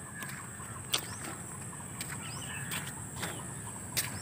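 Quiet outdoor background: a few short bird chirps and several sharp clicks, over a steady high-pitched tone and faint low noise.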